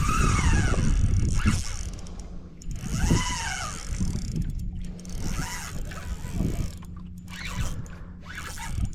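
A fishing reel working, with a mechanical whir that rises and falls in pitch in several sweeps of about a second each, over a low rumble.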